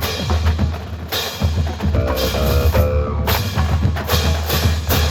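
Marching band music led by heavy drums and percussion over a deep steady bass, with a short run of pitched notes about two seconds in.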